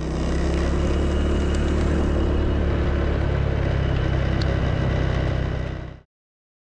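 Motorbike or scooter engine running steadily, a constant low hum under a steady hiss; the sound cuts off abruptly near the end.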